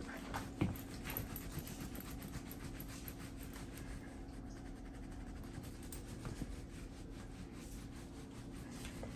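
A towel rubbing over the wet fur of a small capuchin monkey: faint, busy rustling over a steady low hum, with a couple of soft clicks about half a second in.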